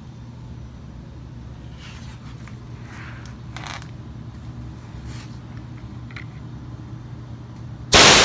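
A low steady hum with a few faint scrapes and taps, then near the end a sudden loud hiss of compressed air rushing through a 3D-printed compressed-air engine as it starts spinning.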